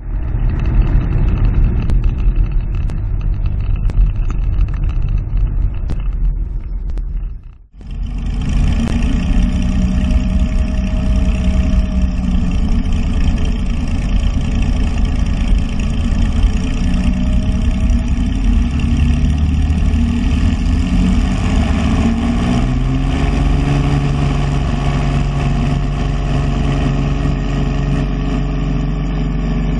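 Cessna 206's six-cylinder piston engine and propeller running steadily, heard first in the cabin and then from outside beside the engine, with a short dropout about eight seconds in. About three-quarters of the way through, the engine note rises and then holds at the higher pitch as the plane rolls along the runway.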